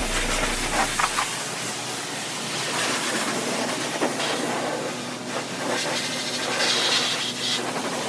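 High-pressure spray wand at a self-serve car wash, spraying water onto a vehicle in a steady hiss that grows brighter for a moment near the end.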